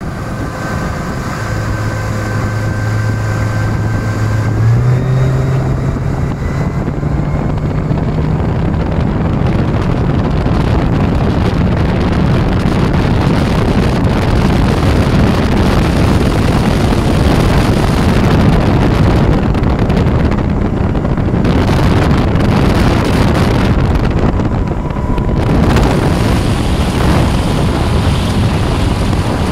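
Suzuki DF140 four-stroke outboard running hard under way. Its engine note climbs in steps over the first eight seconds or so as the boat speeds up, then holds steady at speed. Heavy wind on the microphone and the rushing of water are mixed in.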